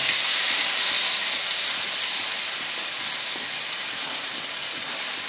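Pointed gourds frying in hot oil in a kadai with freshly added green chilli paste, sizzling with a steady hiss that eases slightly toward the end.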